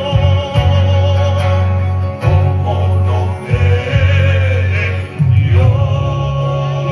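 A slow religious hymn played by a brass band and sung by voices. The band holds long low notes in phrases of a second or so, with short breaks between them.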